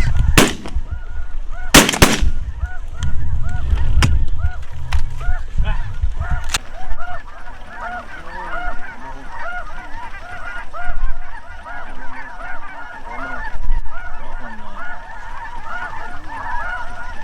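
A volley of about five shotgun blasts in the first seven seconds, two of them close together about two seconds in, over a flock of geese honking and calling continuously in a dense overlapping chorus.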